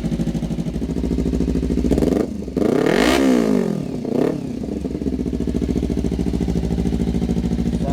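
2014 Kawasaki Ninja 300's parallel-twin engine idling through a KAJIMOTOR aftermarket slip-on exhaust, revved up and back down once about two seconds in, with a second short throttle blip soon after, before settling back to a steady idle.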